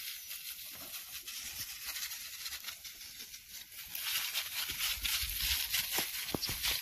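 Knapsack sprayer nozzle hissing as a fine spray of treatment is directed onto pepper plants, getting louder about four seconds in.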